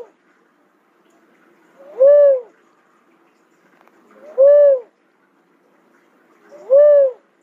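Cuckoo-dove calling: three loud, arched coos about two and a half seconds apart. Each rises and then falls in pitch, lasts about half a second, and is preceded by a faint short note.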